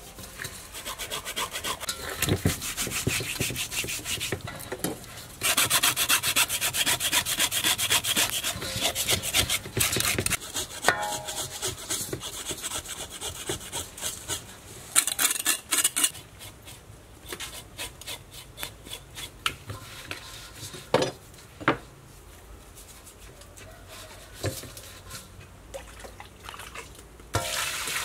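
Whole snakehead fish scrubbed by hand with salt in a stainless steel bowl to clean it: a rapid, rasping rub, loudest through the first half, then quieter with a few sharp knocks. Water is poured into the bowl near the end.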